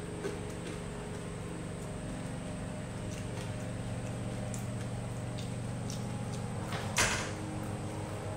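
Quiet eating by hand: faint clicks and taps of fingers picking rice off a plastic-wrapped tray, and chewing, over a steady low hum. One louder, short rustling noise comes about seven seconds in.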